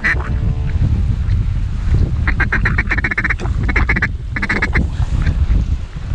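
Duck quacking in three quick runs of notes from about two seconds in, over a steady low rumble of strong wind on the microphone.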